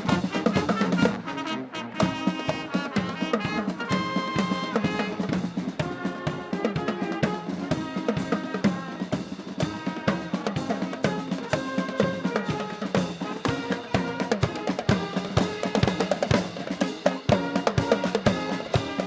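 Marching wind band playing, brass carrying the tune over snare and bass drums that keep a steady, driving beat.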